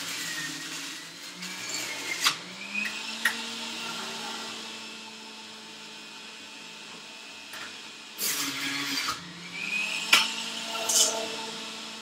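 Electric juicer motor running with a steady hum that sags in pitch and climbs back as produce is pushed through it. It comes with sharp knocks and a louder grinding burst about eight seconds in.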